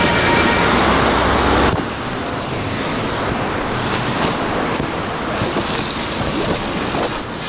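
Passing road traffic on a wet street: a bus and cars going by with a steady hiss of tyres on the wet road. The sound is heaviest, with a deep rumble, for the first couple of seconds, then drops suddenly to a lighter, steadier hiss.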